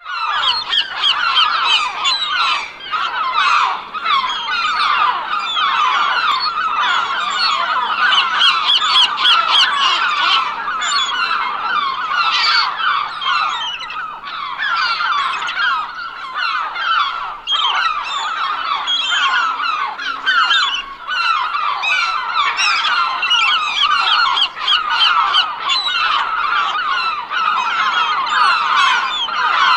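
A flock of gulls calling continuously, many short cries overlapping without a break.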